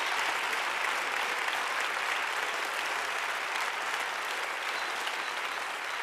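A church congregation applauding, a steady crowd of hand claps that eases slightly toward the end.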